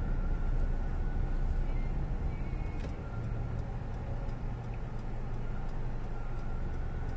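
Honda car heard from inside the cabin while driving: steady engine and road rumble, with a low steady hum coming up about three seconds in.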